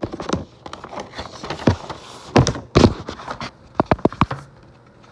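Irregular knocks, taps and rustles of cardboard and paper record packaging being handled, loudest about two and a half to three seconds in, with another quick run of taps near four seconds.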